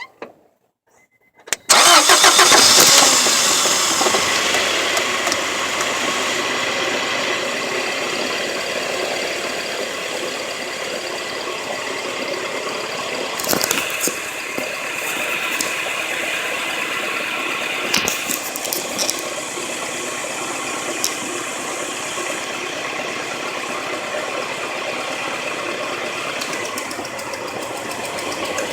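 Honda H22 inline-four engine starting about a second and a half in, loudest just after it catches, then settling to a steady run, with a couple of sharp clicks partway through. This is what a bad rod bearing sounds like: the engine has a worn connecting-rod bearing.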